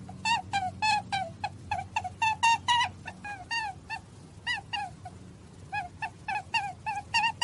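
Rabbit squeaking in a rapid run of short high calls, about three or four a second, with a short lull a little past the middle.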